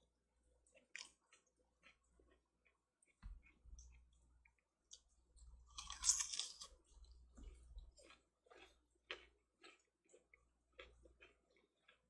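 A man bites into a whole peeled chamoe (Korean yellow melon) about halfway through; the bite is the loudest sound. It is followed by steady chewing with small, quiet mouth clicks, and there is a soft low thump a few seconds in.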